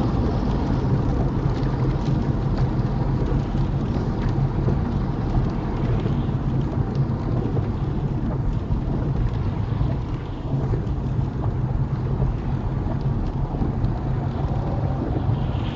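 Steady low road and tyre rumble inside a small car's cabin on a wet motorway, with rain hitting the windscreen.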